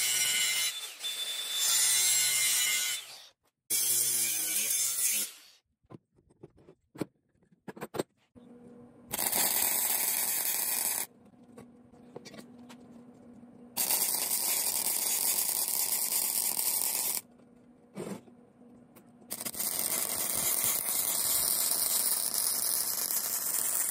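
Angle grinder cutting a square steel tube in two runs, then a MIG welder laying welds in three runs of two to four seconds each, every run starting and stopping abruptly.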